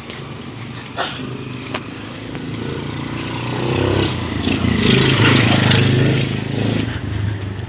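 A motor vehicle passes close by: its engine hum swells to a peak about five seconds in and then fades. Two light knocks come about a second in.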